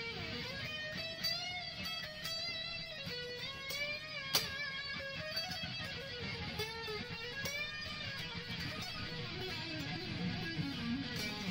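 Electric guitar, a Freedom Custom Guitar Research Stratocaster with a light ash body and one-piece maple neck, played through an ADA MP-1 preamp and Matrix GT800FX power amp with delay and reverb from a Zoom G2Nu. It plays a lead line of sustained notes with string bends and vibrato.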